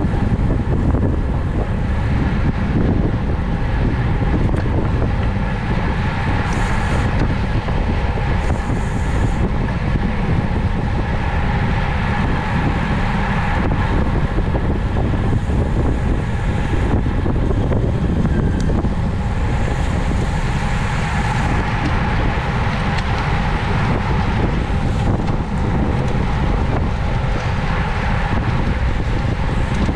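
Steady wind buffeting the microphone of a camera on a road bike ridden at race speed: a continuous low rumble of rushing air with road and drivetrain noise beneath it.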